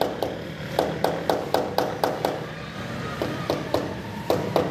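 A hand tool tapping a stone wall tile to bed it into its mortar: quick, sharp taps about four a second, with a pause of about a second midway.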